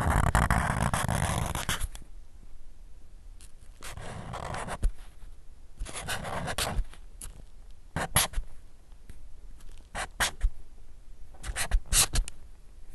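Sharpie permanent marker writing on paper: a continuous scribbling stroke for about the first two seconds, then a run of short separate strokes with sharp ticks of the felt tip.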